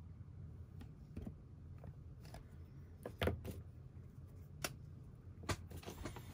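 Light handling clicks and knocks at a desk as a brush pen is picked up and readied, the loudest about three seconds in, over a low steady hum.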